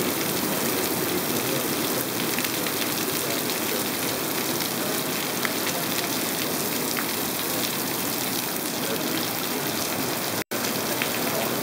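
Heavy rain pouring steadily onto muddy ground, puddles and grass, an even unbroken hiss. The sound drops out for an instant about ten and a half seconds in.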